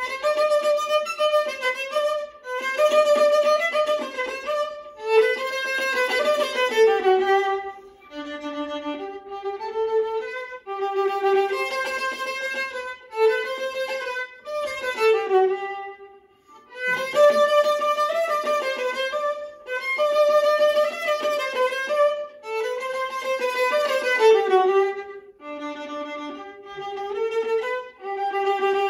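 Solo viola, bowed, playing a traditional Portuguese melody in phrases. It starts out of silence and pauses briefly about 8, 16 and 25 seconds in.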